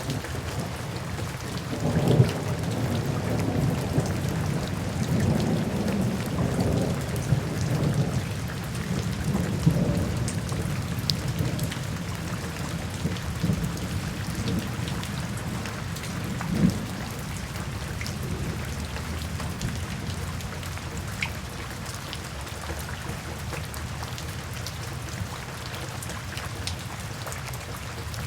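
Steady rain with rolling thunder: low rumbles swell repeatedly through the first ten seconds and once more briefly about two-thirds of the way through, then the rain carries on more evenly. Faint scattered ticks run through it.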